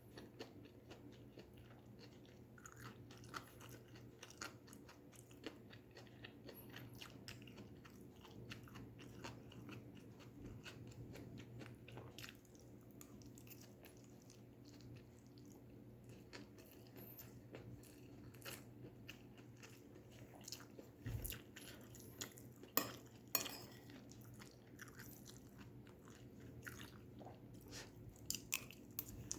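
A person chewing and biting crunchy stir-fried vegetables close to the microphone: a steady run of soft crunches and mouth clicks, with a couple of louder crunches a little past the middle and a few more near the end.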